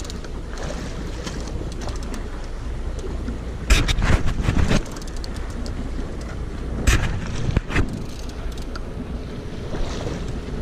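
Fishing boat at sea: a steady low rumble with wind noise on the microphone, and two louder, rough noisy bursts about four and seven seconds in.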